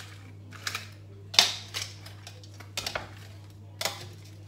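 Metal kitchen utensils knocking and clinking against a stainless steel cooking pot as seafood is arranged in it: a series of sharp clanks, the loudest about a second and a half in. A steady low hum runs underneath.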